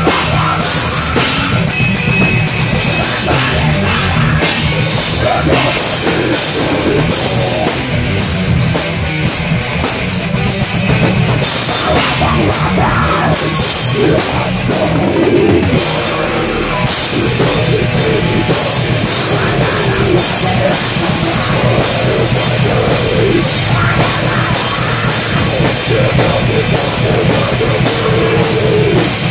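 Heavy metal band rehearsing, loud and continuous, with the drum kit and its Paiste PST cymbals prominent. A vocalist sings into a microphone.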